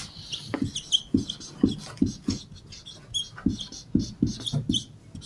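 Marker pen writing on a whiteboard: a string of short, scratchy strokes and light squeaks as a word is written.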